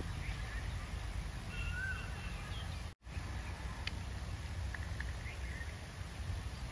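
Open-air ground ambience: a steady low wind rumble on the microphone with a few faint bird chirps. The sound cuts out completely for a moment about three seconds in.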